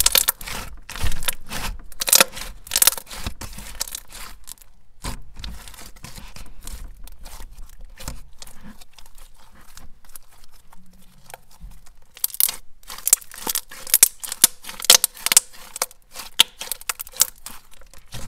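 Thick, glossy smoothie slime being squished and stretched by hand, giving clusters of sharp clicks and pops. The clicking thins out and quiets for a while in the middle, then turns busy again about twelve seconds in.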